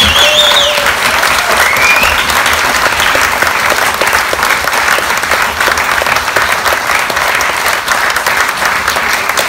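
A roomful of people applauding loudly, with a couple of short high calls near the start.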